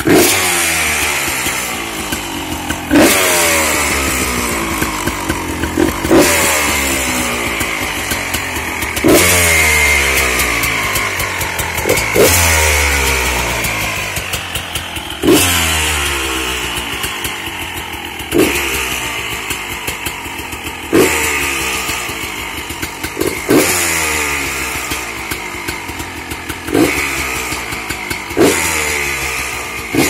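GasGas EC250 two-stroke enduro engine, breathing through a full FMF exhaust (Gnarly expansion chamber and Q Stealth silencer), revved repeatedly while standing still. Sharp throttle blips come about every three seconds, each falling back toward idle.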